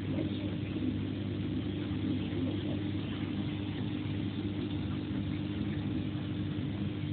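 Steady low mechanical hum at an even pitch.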